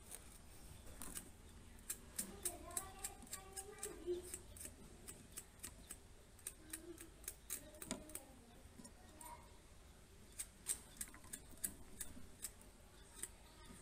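A thin metal blade scraping and cutting at the copper traces where a TV panel's flex cable joins its circuit board. It makes a string of small, sharp ticks, irregular, about two or three a second.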